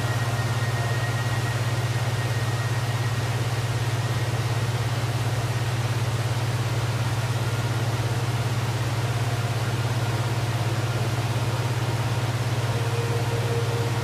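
Waterfall: a steady, even rush of falling water with a strong low rumble underneath.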